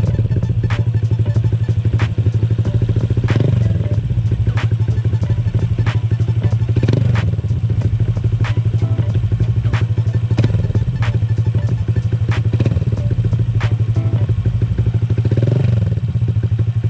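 Honda Click 125i scooter's single-cylinder engine idling through an Akrapovic carbon exhaust with the silencer insert removed, with three short throttle blips that rise and fall back to idle.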